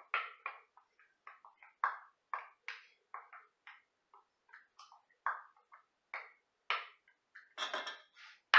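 Wooden spoon scraping and tapping tomato sauce out of a container into a stainless steel stockpot: a run of short, irregular taps and clicks, with a sharper clank of utensil on pot near the end.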